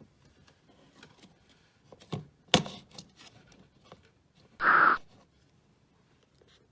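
A few light knocks and clicks, a sharp knock about two and a half seconds in, then a brief scraping sound about four and a half seconds in.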